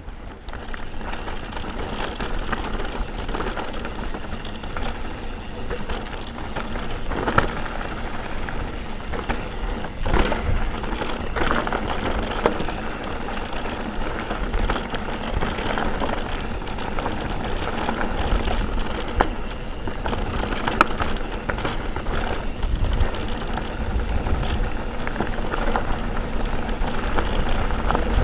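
Mountain bike ridden over a rough trail: continuous tyre rumble and rattling of the bike, with sharp knocks every few seconds, and wind buffeting the microphone.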